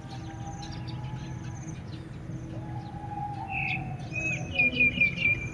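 Birds chirping, with short high notes repeating throughout. About three and a half seconds in comes a louder run of quick chirps, the loudest sound here, over a steady low rumble.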